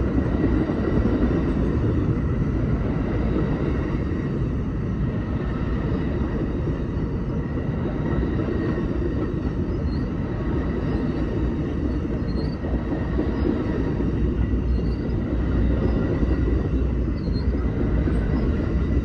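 Amtrak passenger train rolling past, a steady rumble of its wheels on the rails.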